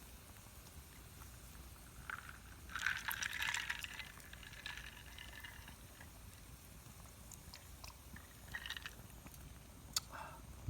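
A drink being poured into a glass for about three seconds, starting a couple of seconds in, followed by a few small clicks and a sharper knock near the end.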